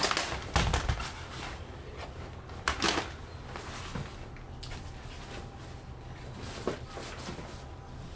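Household things being handled and packed by hand: a few knocks and bumps with rustling, the loudest at the start and about three seconds in, over a low steady hum.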